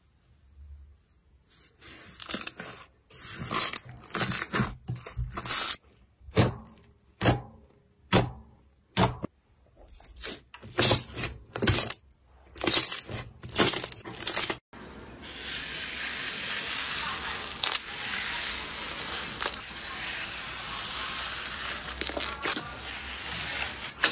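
Slime worked by hand: a run of sticky pops and crackles as it is squeezed and pulled. About two-thirds of the way through it cuts to a different slime, which gives a steady dense crackling hiss as it is stretched.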